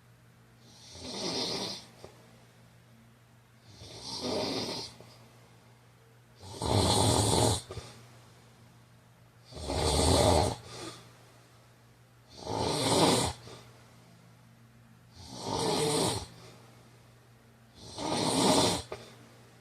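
A man snoring steadily, seven snores about three seconds apart. The third and fourth are the loudest and deepest.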